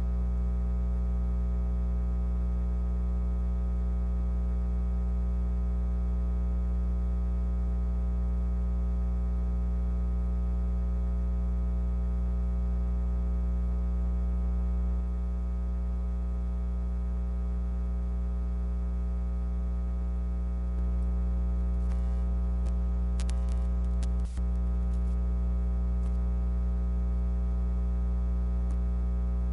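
Steady electrical hum with a stack of even overtones, unchanging throughout, with a few faint clicks a little over 20 seconds in.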